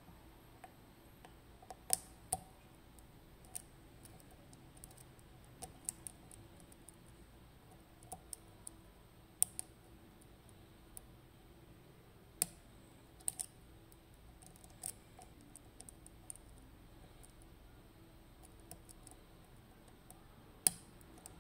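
Scattered small clicks and taps of a lock pick working the pins of a FAB 3-star pin tumbler lock held under tension, a dozen or so at irregular intervals, a few of them sharper than the rest.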